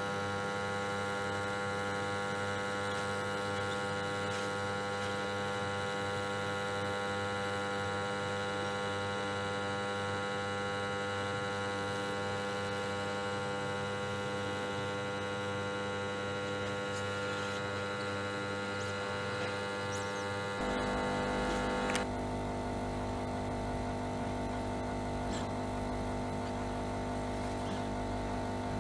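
Hot-air plastic welder running with a steady electric hum of many tones while the plastic rod is welded in. About two-thirds of the way through the hum changes pitch and a low rumble joins it.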